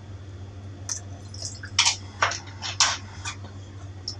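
Several short, sharp clicks and taps of a spoon and lid against a mixer-grinder jar, over a faint steady low hum.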